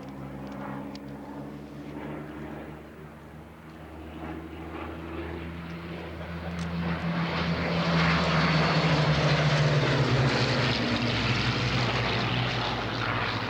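Piston-engined propeller aircraft running, a steady engine drone that grows louder from about halfway through as the aircraft comes close, then drops in pitch as it passes.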